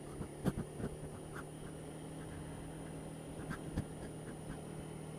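Honda Dio scooter's single-cylinder engine running with a steady hum while riding, broken by a few short knocks and rattles, the loudest about half a second in.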